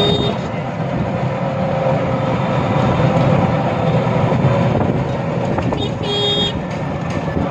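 Steady engine, road and wind noise of a moving vehicle heard from on board, with a short horn beep about six seconds in.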